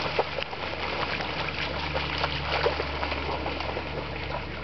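Shallow river water running, with many small, irregular splashes through it.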